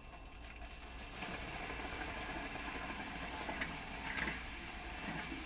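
Faint rustling and handling noise with a few light clicks as hands work among the hoses and fittings around a boat's air-conditioner raw-water pump and sea strainer.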